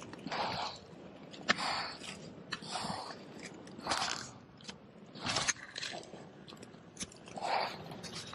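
Footsteps crunching through dry eucalyptus leaf litter and sticks, about one step a second, with an occasional sharp snap of a twig.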